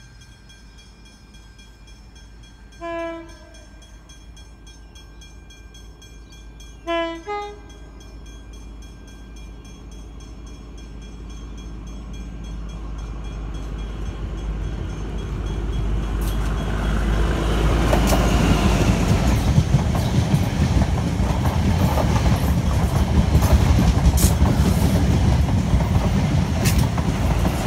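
XPT diesel passenger train giving a little toot on its horn: one short blast, then about four seconds later a short two-note blast. The train then approaches and passes close by, its running growing steadily louder, with wheels clicking over the rail joints as the carriages go by.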